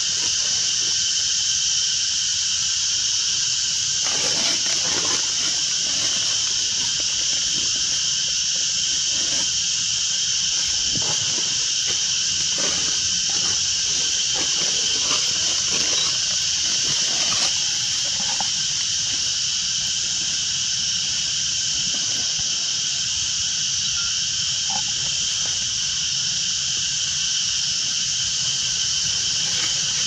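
Dense, steady insect chorus, high-pitched and continuous. Scattered short rustles and clicks, from about four to eighteen seconds in, sound over it.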